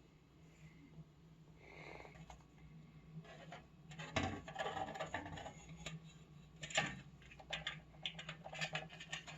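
Faint handling clicks and knocks as a motherboard is lowered into a Cooler Master Q300L PC case and shifted into place, with a couple of louder knocks about four and seven seconds in.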